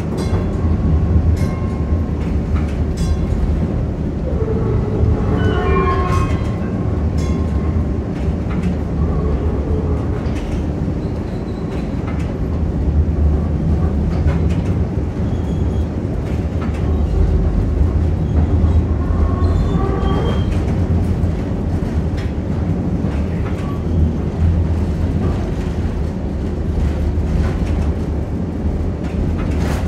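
1947 St. Louis Car Company PCC streetcar running along the track, heard inside the car: a steady low rumble of wheels and running gear, with scattered clicks over the rail joints.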